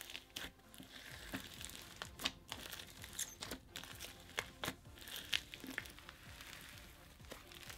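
Crunchy icy slime being poked and squeezed in its plastic tub, then stretched, giving irregular crisp crackles and pops: the slime's crunch.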